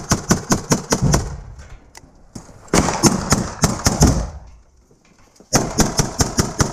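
Automatic gunfire in bursts of rapid, evenly spaced shots, about six or seven a second. The bursts are broken by pauses of a second or so: one ends just over a second in, another runs through the middle, and a third starts near the end.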